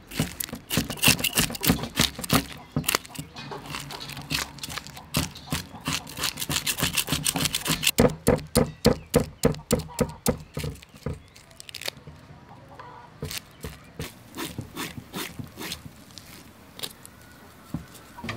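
Knife blade scraping scales off a whole snakehead fish on a wooden chopping board, in rapid rasping strokes about five a second. About eleven seconds in, the strokes become quieter and sparser.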